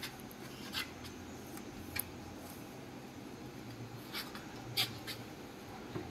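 Faint handling noises as a metal panel board and its bolts are fitted to a drilling machine: about six short, light clicks and taps spread over a few seconds, over a low background.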